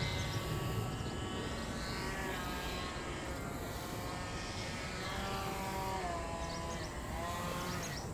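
A small radio-controlled foam plane's motor and propeller whining steadily in flight, its pitch sliding down and back up a few times as it passes.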